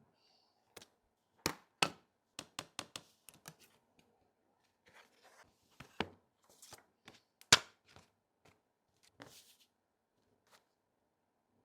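Scattered sharp clicks and taps of small repair tools against the handset of a Samsung Galaxy S23 Ultra with a cracked glass back, irregularly spaced, with a few short scratchy scrapes in between. The loudest click comes about two-thirds of the way through.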